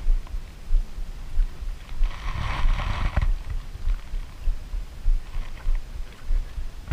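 Small wooden outrigger fishing boat: low, regular thumping about one to two times a second, with a brief hiss about two seconds in.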